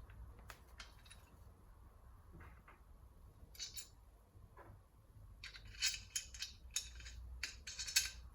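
Light clicks and clinks of small hard objects being handled, a couple just before halfway and a quick run of them in the second half, over a faint low hum.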